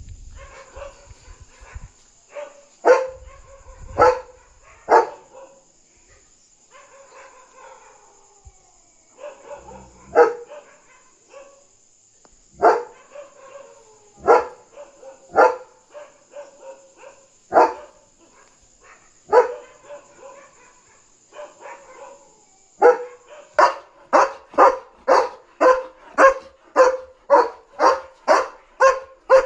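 German Shepherd alarm-barking at another dog outside. The barks come singly, a second or more apart, then about three-quarters of the way through turn into a nonstop run of about two barks a second.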